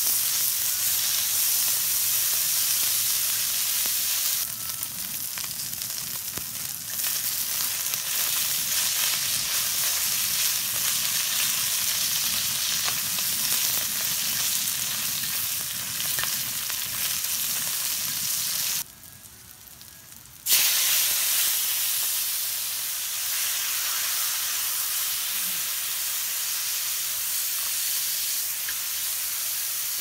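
Pork belly sizzling on a hot round griddle pan, a steady frying hiss. About two-thirds of the way through it drops away for a second or so, then comes back.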